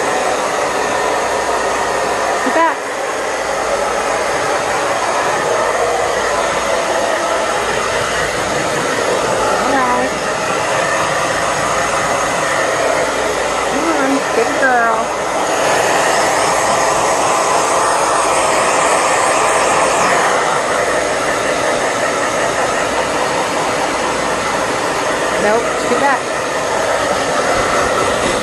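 Handheld hair dryer running steadily, blowing air on a wet small dog's coat. The rush of air grows brighter for a few seconds past the middle as the dryer is moved about.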